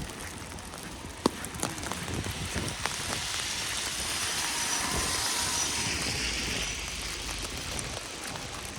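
Tyre hiss of a vehicle passing on a wet, snowy road, swelling about three seconds in and fading near the end, over scattered small clicks and a sharp click about a second in.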